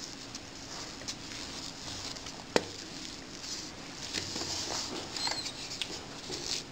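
A wooden spoon stirring a crumbly, damp corn buñuelo dough in a bowl: a steady rustling scrape with small clicks, and one sharp knock about two and a half seconds in.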